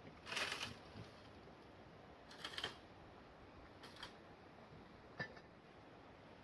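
Three brief rustling scrapes about one and a half to two seconds apart, then a single sharp click, over a faint steady hiss.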